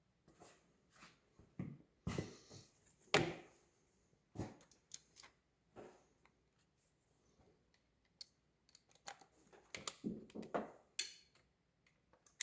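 Metal sockets and hand tools clinking and clattering in scattered short knocks while a socket is picked out from a set, with one brief metallic ring about eleven seconds in.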